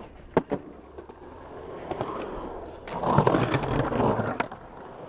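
Skateboard on a ramp: two sharp clacks of the board about half a second in, then the wheels rolling louder into a loud, rough scrape along the ramp's lip that stops sharply near the end.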